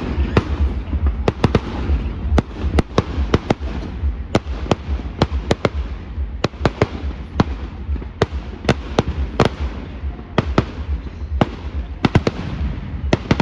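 Fireworks display: an irregular barrage of sharp bangs, several a second, over a continuous low rumble.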